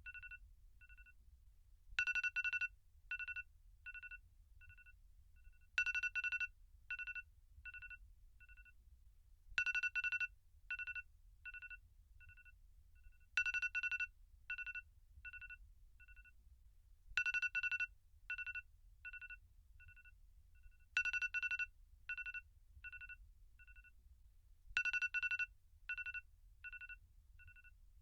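iPhone alarm tone ringing in a repeating loop of beeps at two pitches. About every four seconds a loud cluster of beeps is followed by a run of fainter, shorter beeps, seven cycles in all.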